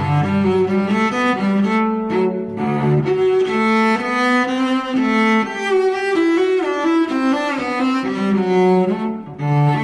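Instrumental music with long held low notes, the pitch moving every second or so, briefly dropping away about nine seconds in.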